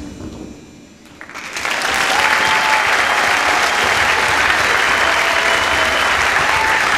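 The last of the music dies away into a brief lull, then a theatre audience breaks into loud, sustained applause about a second and a half in.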